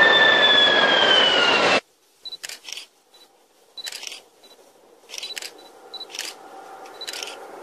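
High-speed electric train passing close on an elevated viaduct: loud rushing with a whine that falls in pitch as it goes by, cut off suddenly about 1.8 s in. After that, only a faint distant train and faint short high chirps.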